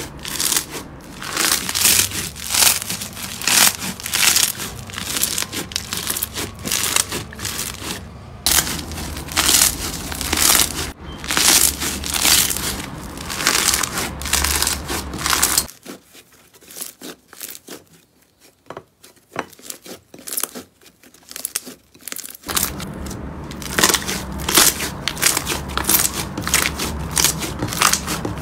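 Hands pressing and squeezing slime, giving dense crackling and popping. A little over halfway through it goes much softer for several seconds, then the crackling starts again.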